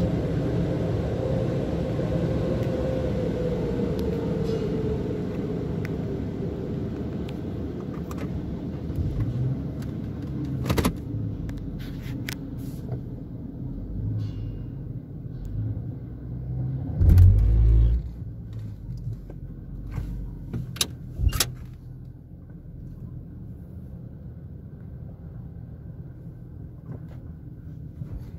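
Car wash dryer blowers winding down, a steady rush with a falling hum that fades over the first several seconds. Then come a few knocks, a heavy thump about 17 seconds in and a couple of sharp clicks, as the car rolls out of the bay with its engine running quietly.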